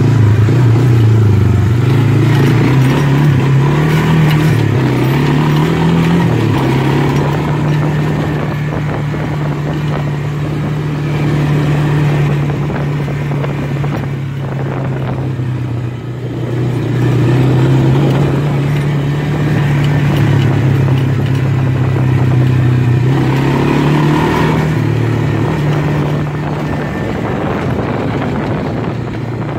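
Honda FourTrax 300 ATV's single-cylinder four-stroke engine running while riding, its pitch rising and falling with the throttle over the first few seconds and again about three quarters of the way through, steady in between.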